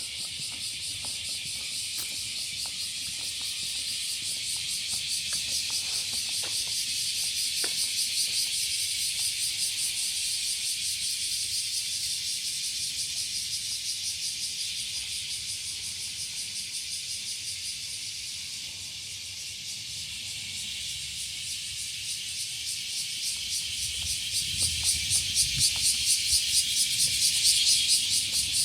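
A chorus of insects chirring, a dense high-pitched drone with a fast even pulse that swells louder near the end.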